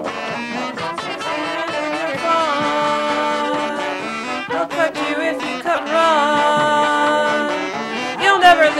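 Brass marching band playing: trombones, trumpets and saxophone in a loud, lively tune with long held chords, some notes bending up into pitch.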